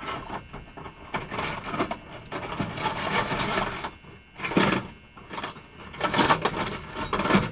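Small metal hand tools clinking and rattling as they are handled and sorted through, in several spells of dense clicks.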